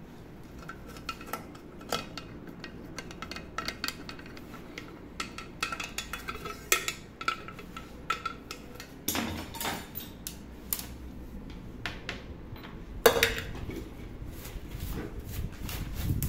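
Small metal clicks and clinks of parts and tools against a pressure cooker as a new handle is fitted with its lock washer and tightened, with two louder knocks partway through.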